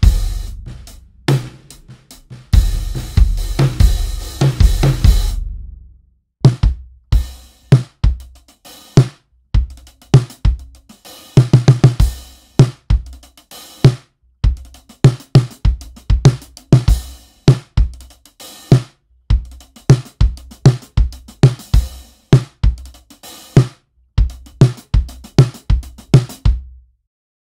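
A drum kit played in a steady groove: kick drum, snare, hi-hat and cymbal. For the first five seconds the kick has a heavy, long-ringing low end, with a marching bass drum resonating in front of it. After a short break about six seconds in, the playing resumes with a tighter kick whose low end dies away between hits. The playing stops about a second before the end.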